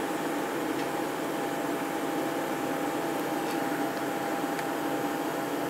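Steady machine hum and hiss with a faint, high, held tone, unchanging throughout.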